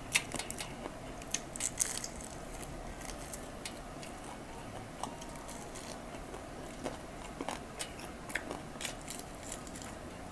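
Crispy fried chicken being eaten up close: crackly bites and chewing with scattered sharp crunches of the fried batter, busiest in the first two seconds and again later on.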